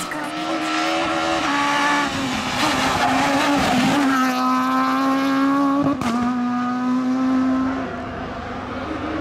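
Renault Clio S1600 rally car's 1.6-litre four-cylinder engine at high revs, its note held nearly steady for several seconds at a time, with an abrupt cut about six seconds in. Around eight seconds in the note drops and gets quieter, then starts to rise again near the end.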